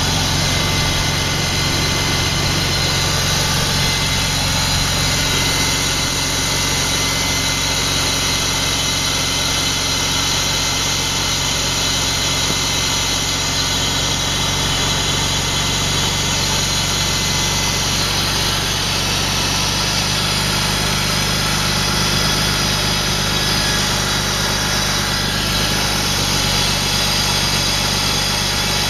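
2000 BMW 328i's 2.8-litre straight-six idling steadily with a rough idle, which the owner suspects comes from a bad intake boot letting in unmetered air.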